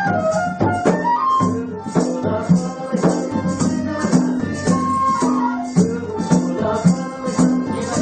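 Background music with a steady quick beat and a melody over held bass notes.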